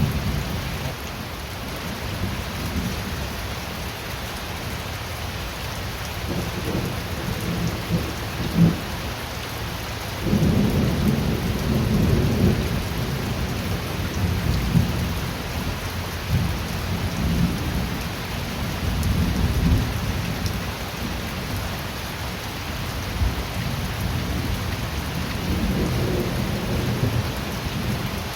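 Steady rain with low thunder rumbling on and off, the loudest roll about ten seconds in.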